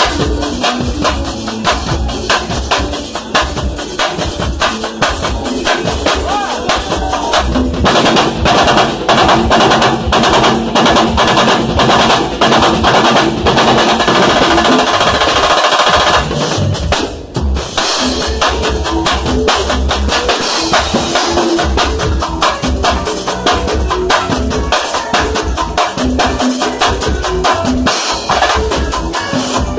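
A drum kit and timbal hand drums play a fast, dense percussion groove during a band soundcheck. The playing stops briefly about halfway through, then starts again.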